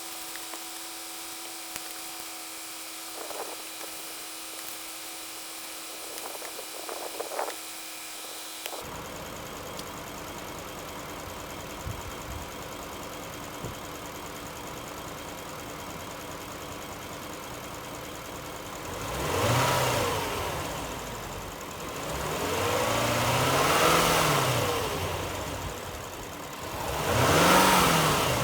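Lexus LS460's 4.6-litre V8 idling, then revved three times, each rev rising and falling back to idle.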